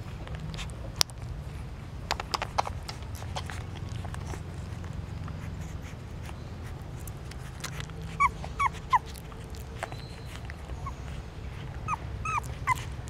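Newborn puppies nursing, with scattered wet suckling clicks. They give short high squeaks and whimpers: three together about two-thirds of the way through and a few more near the end.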